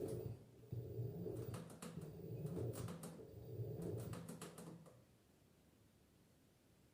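LG F10B8MD front-loading washing machine near the end of its cycle, its drum motor humming low and unevenly with scattered clicks and knocks, then stopping about five seconds in.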